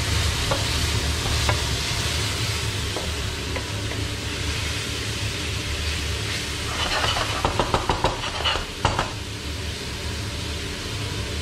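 Chopped onion sizzling in hot oil in a stainless steel pan, stirred with a wooden spoon that scrapes and knocks against the pan, with a burst of knocks about seven to nine seconds in. A range hood fan hums steadily underneath.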